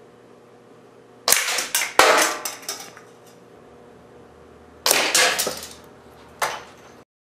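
Two .177 Diana Panther Model 21 air rifle shots, each a sharp crack of the pellet hitting a plastic toy target, followed by the clatter of the toy being knocked off its board. The first comes about a second in, with a second sharp knock just after; the second comes near five seconds, with another knock about a second and a half later.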